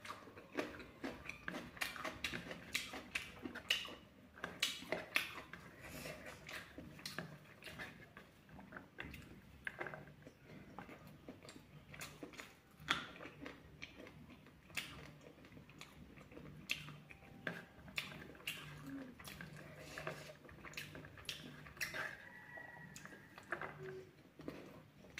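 Close-miked chewing and mouth smacking while eating fried pork, with many short irregular clicks.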